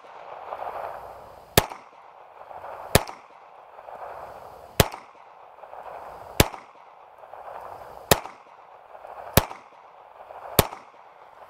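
Walther CCP pistol fired in slow, steady single shots: seven shots about one and a half seconds apart, each trailing off in a short echo.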